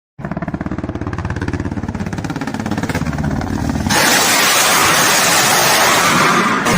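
Russian combat helicopter's rotor chopping in a fast, even beat over its turbine engines. About four seconds in, a much louder continuous rushing roar takes over: a salvo of unguided rockets launching from the helicopter.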